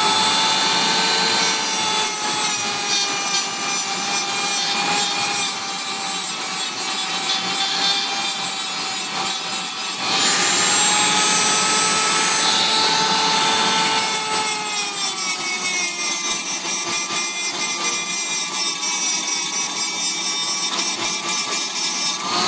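Dremel rotary tool running at high speed, grinding down a typewriter type bar where it rubs at the top in the segment so that it no longer binds. Its whine drops in pitch as it is pressed into the metal, about a second in and again near fourteen seconds, and picks back up around ten seconds.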